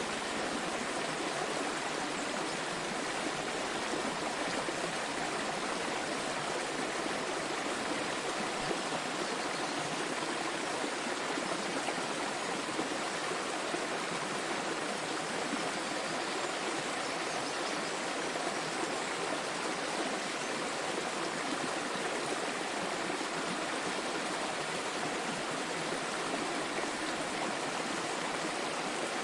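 Small waterfall: water pouring and splashing steadily into a stream, an even rushing sound without change.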